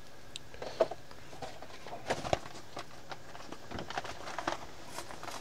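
Scattered light clicks and knocks of kitchen utensils and containers being handled while cooking.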